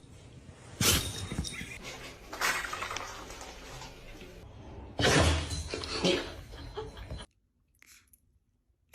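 A dog sneezing: three sharp sneezes a couple of seconds apart.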